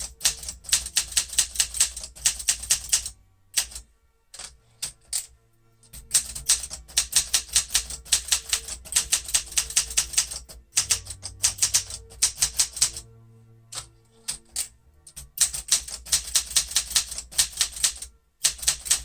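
1968 Olympia SM9 manual portable typewriter being typed on in quick runs of key strikes, with short pauses between the runs; a smooth, quiet typewriter.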